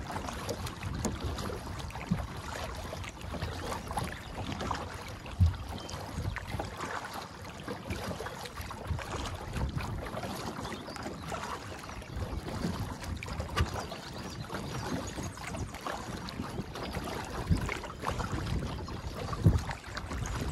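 Kayak moving across choppy canal water: water splashing and lapping against the hull, with wind buffeting the microphone. A few sharp knocks stand out, the loudest about five seconds in and near the end.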